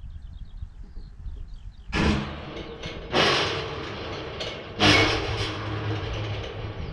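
Farm machinery: a low steady engine hum with three sudden loud noises about two, three and five seconds in, and faint bird chirps before them.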